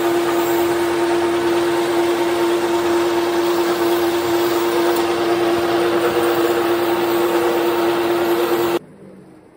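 Metal lathe running with a steady whine while it machines a steel pin. The sound cuts off abruptly near the end, leaving a much quieter, fading noise.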